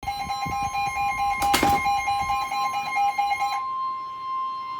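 Weather radio alert: a steady high warning-alarm tone with a rapid pulsing alert beep over it, and a brief click about a second and a half in. The beeping stops about three-quarters of the way through while the steady tone holds. The tone signals that a severe thunderstorm warning broadcast is about to follow.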